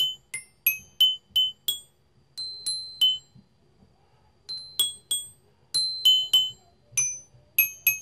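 Children's toy xylophone with coloured metal bars, struck one note at a time with a mallet: bright, ringing single notes at about three a second in uneven runs, with a pause of over a second partway through.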